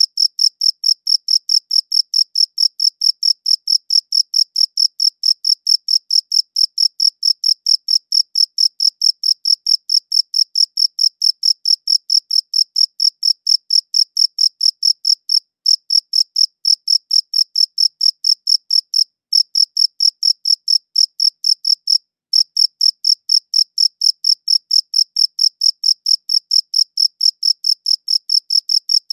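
A cricket chirping close up: a high-pitched, even chirp about four to five times a second, with a few short breaks.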